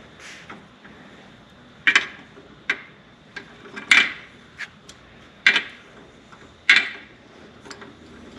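Sharp metal clicks and knocks from hand tools working a thread die down over a stripped bolt held in a vise, chasing its damaged threads. Four loud clicks come about a second and a half apart, with fainter ticks between them.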